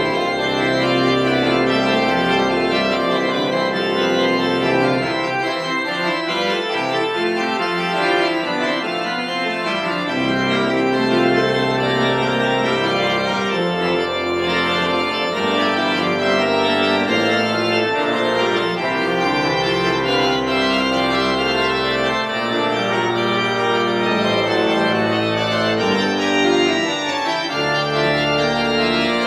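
Church organ playing a busy piece in many voices, with deep pedal bass notes that drop out twice for a few seconds.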